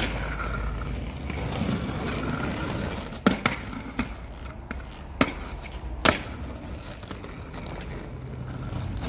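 Hard skate wheels rolling over rough pavement, then five sharp clacks between about three and six seconds in as aggressive inline skates land on and strike a concrete ledge.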